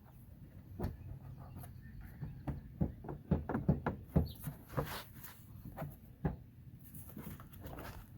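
Irregular plastic clicks, knocks and creaks from a Mitsubishi Eclipse headlight assembly being wiggled and worked loose from a tight spot behind the front bumper. The knocks are busiest about three to five seconds in.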